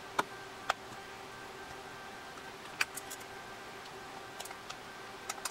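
Scattered sharp clicks of a blade prying at the plastic and metal case of a third-generation iPod, two in the first second and more around the middle and end, over a faint steady hum.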